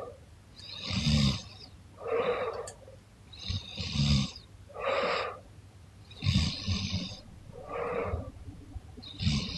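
A young woman snoring in her sleep, about four slow breaths. Each is a low snore followed about a second later by a breathy rush of air.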